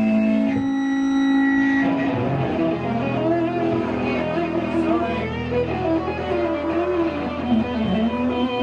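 Hardcore punk band playing live, loud and amplified: sustained, droning electric guitar tones, then about two seconds in the playing turns into a busier riff with wavering, bending notes.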